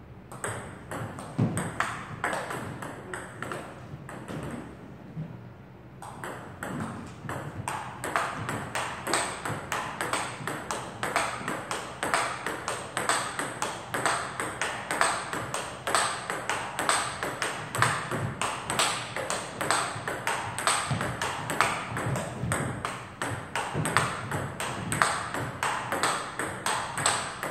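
Table tennis rally: the ball clicking off the rubber-faced paddles and bouncing on the table, a few scattered hits at first, then a steady back-and-forth of about three clicks a second from about six seconds in.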